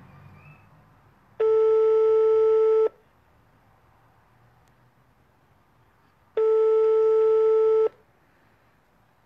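Telephone ringback tone of an outgoing call: two long, steady beeps of about one and a half seconds each, starting about five seconds apart, meaning the called phone is ringing and has not yet been answered.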